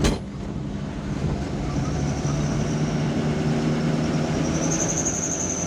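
Truck engine running steadily under way, with road rumble. There is one sharp click at the very start, and a faint high whine comes in near the end.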